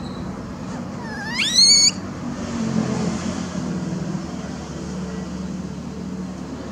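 Infant langur giving one short squeal about a second in: a high cry that dips briefly, then sweeps sharply upward. A steady low hum runs beneath.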